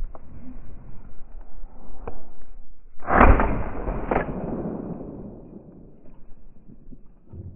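Shotgun fired about three seconds in, with a second sharp report about a second later, the blast rolling away over the next two seconds.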